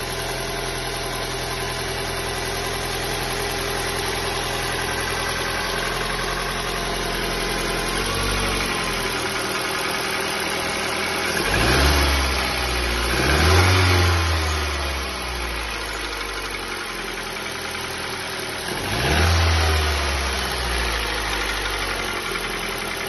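Ford Sigma four-cylinder engine idling cold, knocking from the bottom end: piston skirt slap, which the mechanic puts down to probably excessive piston-to-cylinder clearance and expects to fade once the engine warms up. The throttle is blipped a few times in the second half, the revs rising and falling each time.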